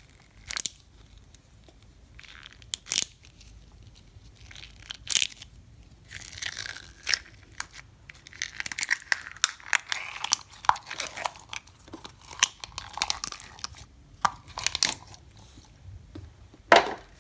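Clear slime being stretched and pressed by hand, giving sharp pops and sticky crackles: a few separate pops in the first five seconds, then a dense run of clicks and pops from about six to fifteen seconds. The slime is a little overactivated, which makes it snap and tear rather than stretch smoothly.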